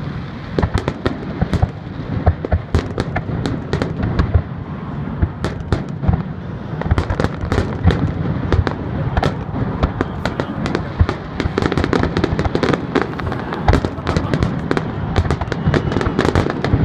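Fireworks display: a rapid, continuous barrage of shell bursts and crackling reports over a steady rumble of booms, getting denser about halfway through.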